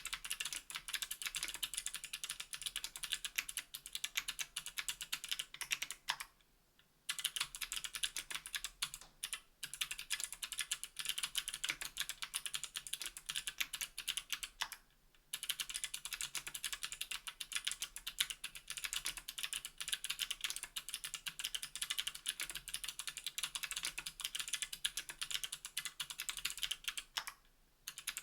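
Fast, continuous typing on a KBDfans Tofu 60% aluminium keyboard with NovelKeys Sherbet clickbar switches and GMK keycaps: a rapid stream of crisp key clicks. It breaks off briefly about six seconds in, again about fifteen seconds in, and near the end.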